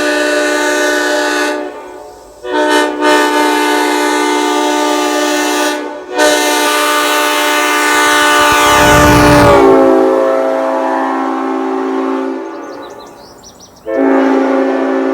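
Replica Leslie S5D five-chime train horn blowing its chord in a series of long blasts with short breaks between them. Partway through, one blast slides down in pitch and settles into a quieter chord before dying away, and a fresh blast starts near the end.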